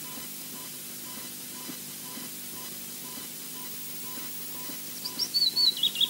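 Steady hiss from the nest-camera microphone with a faint regular pip. About five seconds in, an osprey chick starts begging: a fast run of high, thin chirps that rise and fall.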